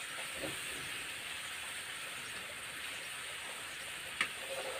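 Onion and spice paste sizzling steadily in hot oil in a kadai, being fried until its raw smell goes, with a small click about four seconds in.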